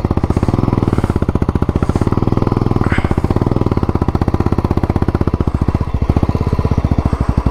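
Royal Enfield Classic single-cylinder motorcycle engine running at low, even revs with a rapid, regular exhaust beat, the bike being ridden slowly out through wet sand. The beat falters briefly about six seconds in.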